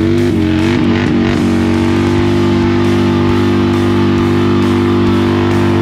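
Background rock music: an electric guitar holds one long sustained chord that wavers briefly at first, then rings steady.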